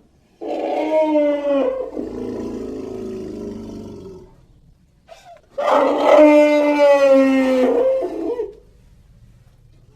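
Elephant trumpeting twice. The first call comes about half a second in and trails off into a lower, rougher noise. The second, longer call lasts about three seconds and starts just past the middle.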